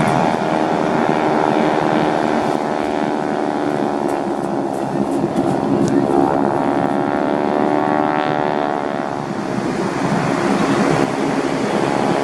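Propeller-driven aircraft engine running loudly in a flypast, its engine note bending down in pitch partway through as the aircraft passes.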